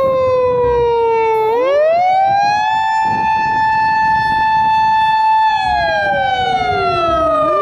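Japanese police car siren wailing: the pitch falls slowly, rises about a second and a half in to a held high note, then slides down again for the last couple of seconds.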